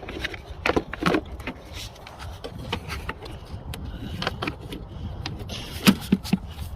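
Plastic air filter housing cover being fitted back into place: a handful of separate clicks and knocks, the loudest cluster near the end.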